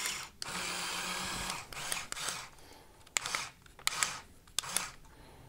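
Small electric motors of a Mould King pneumatic crane truck, built from building blocks, running under remote control while the crane holds up a load of two battery boxes: a steady whirr for about a second, then several short spurts and sharp clicks as the controls are worked.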